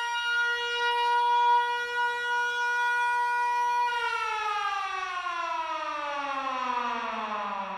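A siren sound: one steady high tone held for about four seconds, then sliding slowly and smoothly down in pitch as it winds down.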